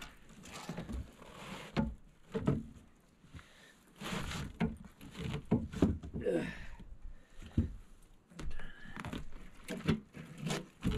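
Irregular knocks, taps and rustling of a catfish and gear being handled in a boat.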